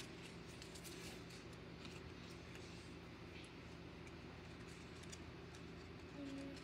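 Faint rustling and light flicks of trading cards being thumbed through by hand, with scattered small clicks over a low steady hum.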